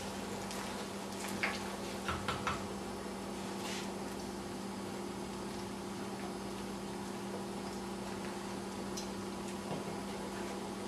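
Pots simmering on an electric stove over a steady low hum, with a few light clinks of a spoon against a stainless steel pot between about one and four seconds in.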